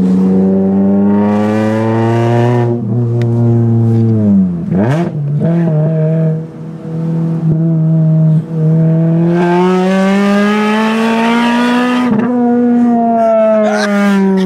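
Supercharged 1.8-litre four-cylinder engine of a Toyota Corolla with a TTE compressor kit, running through a custom exhaust with the centre box and back box deleted. It is held at sustained revs whose pitch slowly rises and falls, with a quick drop and recovery about five seconds in.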